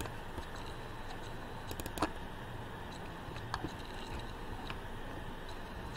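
A few sharp computer mouse clicks, with a quick cluster about two seconds in and single clicks later, over a steady low hum of room noise.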